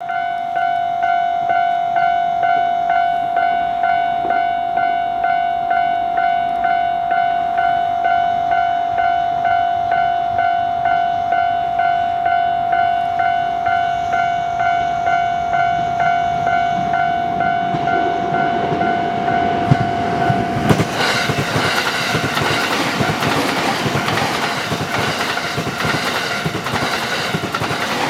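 Japanese level-crossing warning bell ringing a steady electronic ding-ding, about one and a half strokes a second, as a JR East E217 series electric train approaches. About twenty seconds in, the bell stops and the train passes close by, with loud rushing and the clatter of wheels over rail joints.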